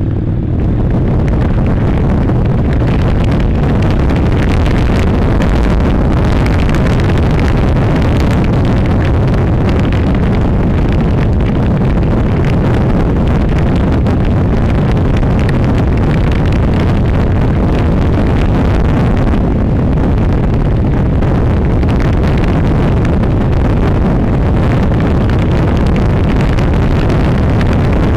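Honda NC700 motorcycle being ridden on a gravel road: the steady, low rumble of its parallel-twin engine mixed with wind noise on the helmet-mounted microphone.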